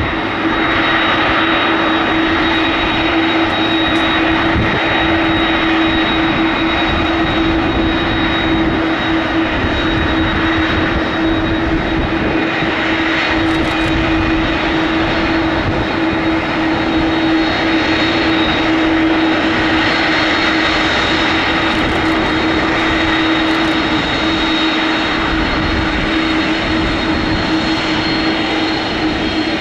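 McDonnell Douglas MD-11 trijet's jet engines running at taxi power as the aircraft rolls along the taxiway: a steady high whine over a low hum.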